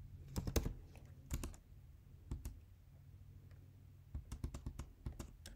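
Computer keyboard typing: a few short bursts of key clicks with pauses between, the longest run near the end.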